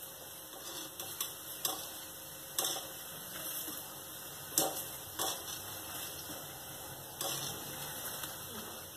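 A wire skimmer clinks several times against an iron kadai while turning dal fritters in hot frying oil. Under the clinks, the oil sizzles with a steady hiss.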